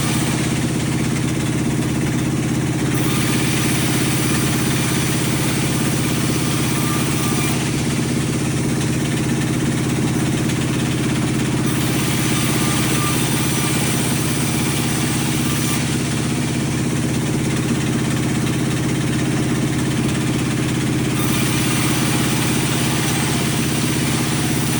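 Sawmill machinery running steadily with a constant engine hum. Stretches of hissing noise, each about four seconds long, are added three times over it.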